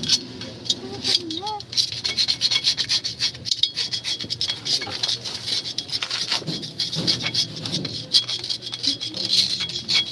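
A hand tool scraping and rasping on the metal parts of a Toyota HiAce rear drum brake, with the drum off, in a dense run of fast scratchy strokes.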